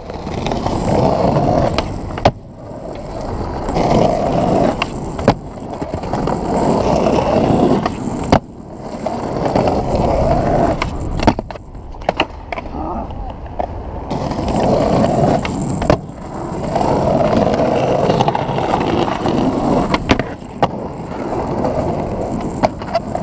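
Skateboard wheels rolling over rough asphalt, broken every few seconds by a sharp clack of the board being popped or landing.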